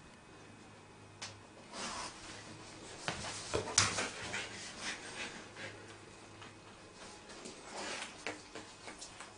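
Golden retriever mother and her young puppy snuffling and shifting against each other: soft breathy sniffs and rubbing, with a few sharp knocks, the loudest a little under four seconds in.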